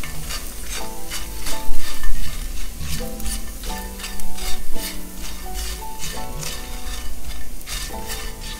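Tofu cubes sizzling in oil in a nonstick skillet as a spatula stirs and tosses them, with a quick run of scrapes and knocks against the pan.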